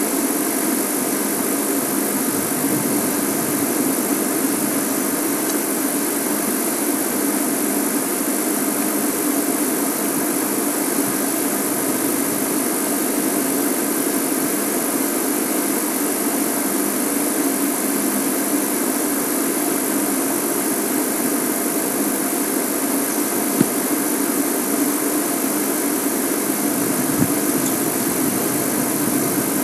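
Safari game-drive vehicle running steadily at idle, with an even hiss over the engine hum and two small knocks late on.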